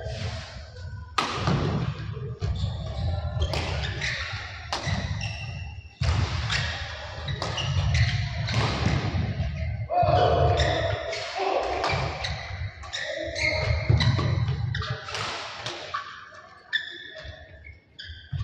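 Badminton rally in a large indoor hall: sharp racket strikes on the shuttlecock about once a second, with thuds of footwork on the court and voices in the background.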